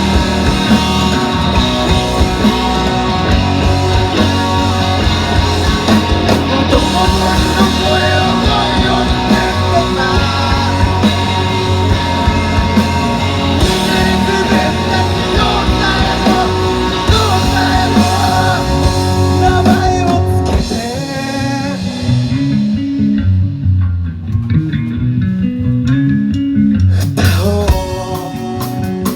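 Rock band music led by guitar. About 21 seconds in the high end falls away, leaving the lower guitar lines. The full band comes back in just before the end.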